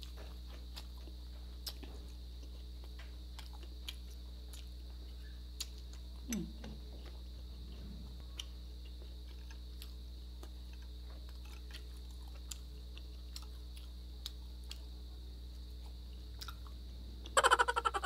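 Steady high-pitched drone of crickets at night, under soft chewing and small clicks of eating. About a second before the end a loud run of rapid chirps starts and fades.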